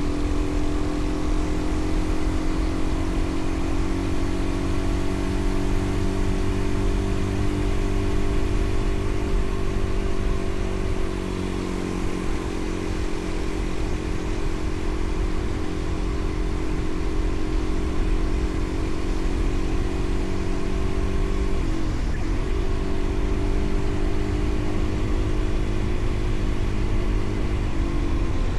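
Vehicle engine running at a steady speed on the move, with a low rumble of wind and road under it; its pitch dips briefly about 22 seconds in and again near the end.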